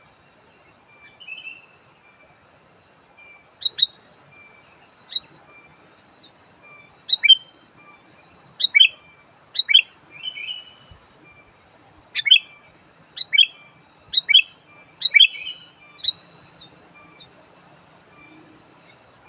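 Sooty-headed bulbul calling: a run of sharp, quickly falling whistled notes, many in quick pairs, with softer short chirps between. The loud notes start a few seconds in and stop near the end.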